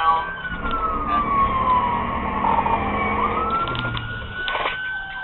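Police car siren in wail mode, its pitch sliding slowly down and then back up once, over engine and road rumble.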